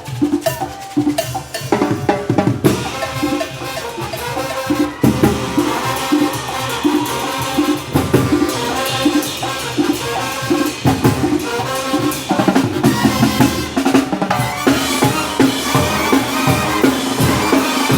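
A Oaxacan brass band playing a lively muertero (comparsa) and calenda rhythm: brass over drums and snare with a steady, regular dance beat.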